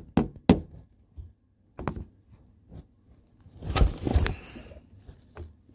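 Handling noise from a phone held against a glass door: a few sharp taps and knocks, then a rustling scrape about four seconds in.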